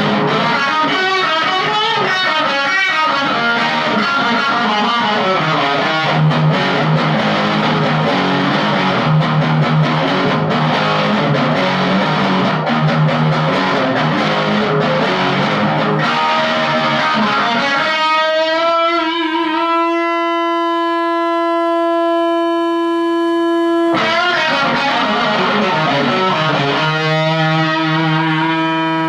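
Electric guitar with heavy overdrive: a 2012 Gibson Les Paul Studio through a Marshall Jackhammer JH-1 distortion pedal into a Marshall MG15CD amp on its clean channel. Fast riffing for most of the first two-thirds, then a note held and left ringing for about four seconds, then more riffing and another held note near the end.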